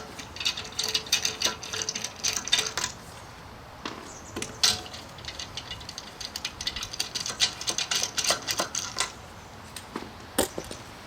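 Rapid metallic clicking and rattling from hand tools at work on a car, in two runs of about three seconds each with a short pause between.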